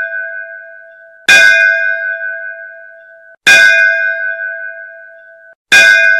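A bell struck three times about two seconds apart. Each stroke rings out with a clear pitch and fades, then cuts off sharply just before the next, with the fading ring of an earlier stroke at the start.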